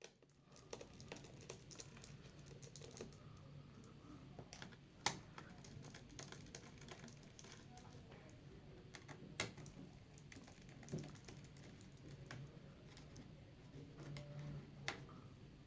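Scattered small clicks and taps of hands and tools working on a Dell 7537 laptop's case, over a faint low hum; the sharpest click comes about five seconds in.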